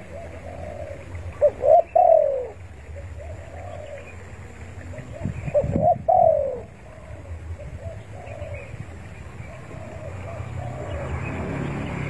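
Spotted dove (tekukur) cooing: two loud multi-note phrases a few seconds apart, with fainter coos between them. A low rumble runs underneath and grows louder near the end.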